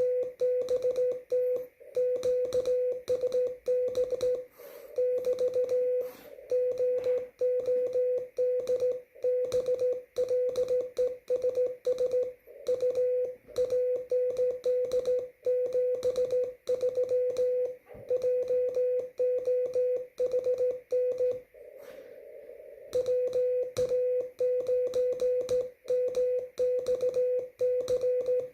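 Slow-speed Morse code on amateur radio: a steady tone of about 500 Hz keyed on and off in dots and dashes. About three-quarters of the way through the keying pauses for a second and a half, leaving only faint receiver hiss.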